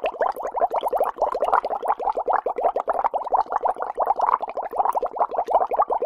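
Air blown through a drinking straw into a soft drink, bubbling without a break in a dense stream of many small pops a second.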